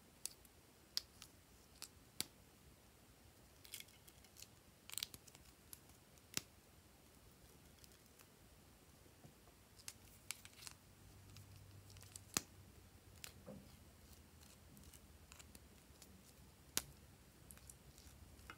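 Sharp, scattered plastic clicks and taps as small plastic tube containers are handled and their caps worked open, with near silence between the clicks.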